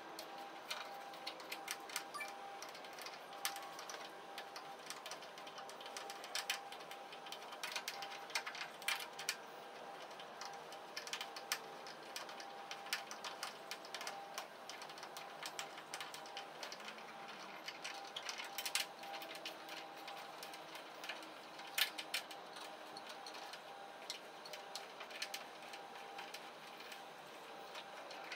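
Light, irregular metallic clicking and ticking of an L-shaped Allen key turning out the Allen adjustment screws of a tractor headlight.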